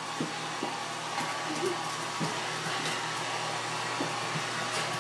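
Handheld hair dryer blowing steadily, with a few short, light knocks scattered through.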